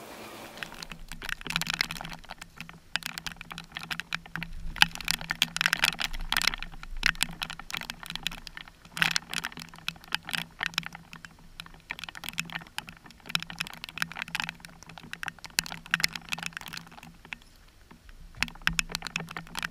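Raindrops striking a waterproof action-camera housing: a dense, irregular pattering of sharp taps, over a faint steady low hum.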